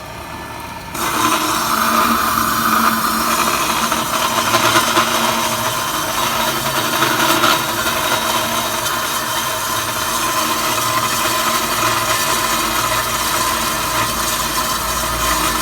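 Automatic pipe-cutting machine cutting through a pipe: a steady, loud sawing noise with a few held tones kicks in suddenly about a second in, over the quieter hum of the machine running.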